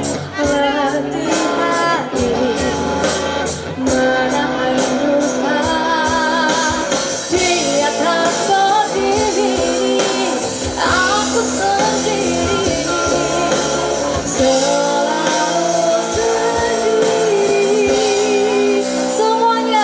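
Live pop music with a singer, played loud through a concert sound system, with some shouting from the crowd.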